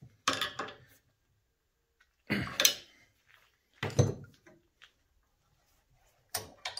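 Steel spanner working the nut of a hydraulic cutting-ring fitting held in a vise: four short bouts of metal clatter and scraping a second or two apart, as the nut is tightened its last half turn to seat the cutting ring.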